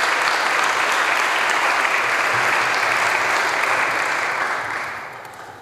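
A roomful of people applauding, steady clapping that fades away over the last second or so.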